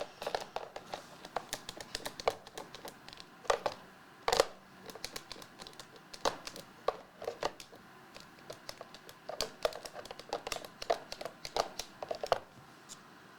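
Hands handling trading cards in plastic sleeves and holders: irregular clicks, taps and crinkling, with a couple of louder knocks around four seconds in.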